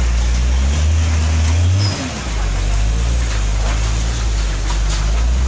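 Heavy loaded cargo truck's diesel engine running under strain, a deep steady drone; the revs climb slowly and drop suddenly about two seconds in, then hold steady.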